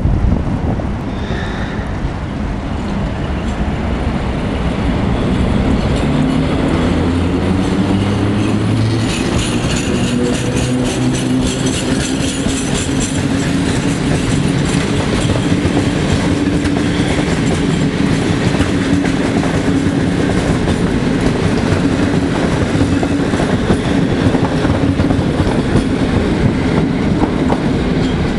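PKP ET22 electric locomotive pulling a passenger train away from the platform, with a low hum that steps up in pitch as it gathers speed. The passing coaches' wheels click rhythmically over the rail joints.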